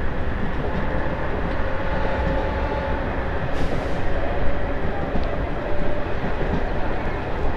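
Diesel multiple-unit (DEMU) passenger train running, heard from on board: a steady rumble of wheels on rail with a faint whine that comes and goes.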